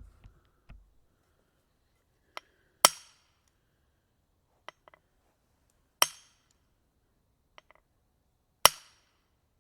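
A maul striking a metal wedge three times, about three seconds apart, each blow a sharp metallic crack with a brief ring. A faint clink or two comes just before each blow.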